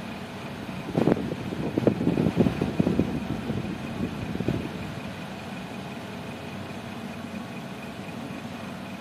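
A steady low hum from a small motor or fan runs throughout. About a second in, a few seconds of soft knocks and clicks begin, the handling noises of acrylic nail work, then die away.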